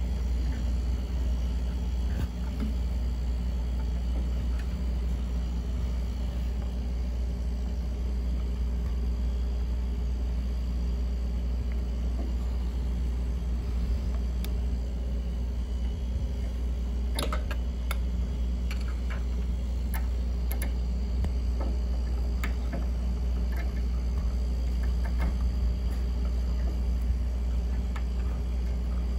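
Refrigerator's R134a hermetic compressor running with a steady low hum. A few light clicks come a little past halfway through as an Allen wrench turns the piercing valve down onto the copper line.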